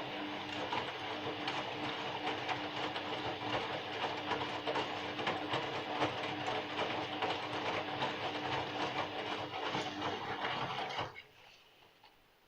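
Bosch washing machine drum turning during the rinse cycle: steady motor hum with the rattle and slosh of the wet load, stopping suddenly about eleven seconds in.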